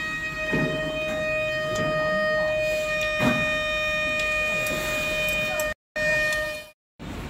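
A steady, high-pitched electrical whine with overtones, with light handling knocks and a few faint voices; it cuts off abruptly near the end.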